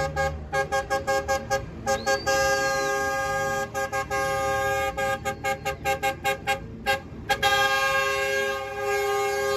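Tour-bus multi-tone air horns sounding a rhythmic run of quick toots, several a second, broken by long held blasts about two seconds in and again near the end.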